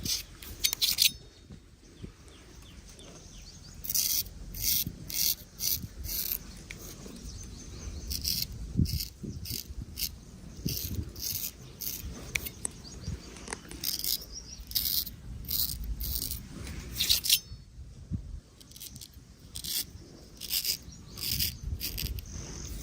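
Barber's straight razor scraping through hair and stubble in short, crisp strokes, several in quick succession, then a pause before the next run.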